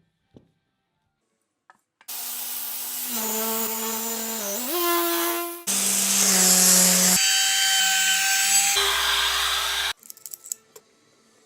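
Power tools working wood, in several short back-to-back segments, each a loud motor whine over cutting noise that changes pitch abruptly between segments. The whine sags and then rises in pitch partway through the first segment.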